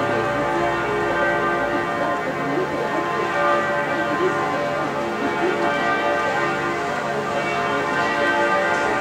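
Church bells ringing, many tones overlapping and sounding on without a break.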